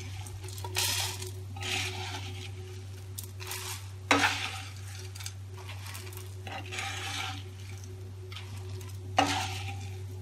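Plastic spatula scooping dry, crisp puffed rice out of a nonstick pan onto a ceramic plate: short bursts of rustling and scraping, with two sharper knocks, about four seconds in and near the end.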